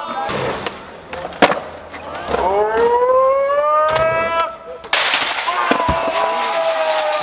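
Skateboard clacks, a board hitting concrete and a ledge, a few times. Spectators let out long, rising yells, and from about five seconds in a crowd cheers.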